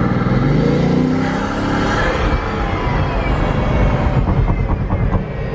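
Bugatti Veyron Grand Sport Vitesse's quad-turbocharged W16 engine accelerating hard, heard from inside the cabin. The revs climb over the first two seconds, then it runs on at speed.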